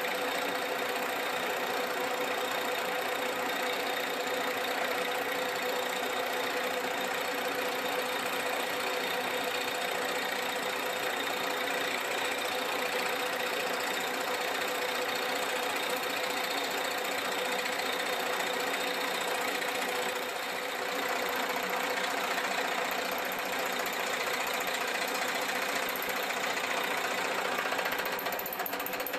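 Archdale vertical milling machine running a shop-made single-point fly cutter through a cut across the edge of a metal plate, a steady machining noise with a rapid, even rhythm. It dips slightly about two-thirds through.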